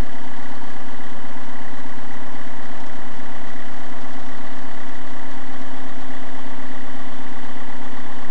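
Heavy snowplow's engine idling steadily, an unchanging loud drone.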